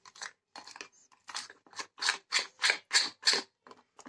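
Spoon stirring thick besan (gram-flour) batter in a glass bowl: quick rhythmic strokes, about four a second.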